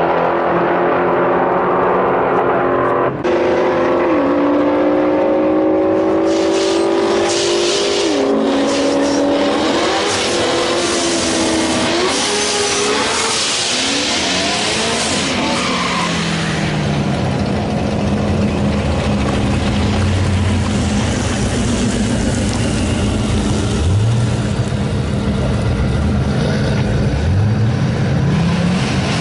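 Drag car at the start line: a Ford Mustang's engine revs hard in climbing pulls through a burnout, the rear tires spinning with a loud hiss. It then settles to a low, lumpy idle with two short throttle blips near the end.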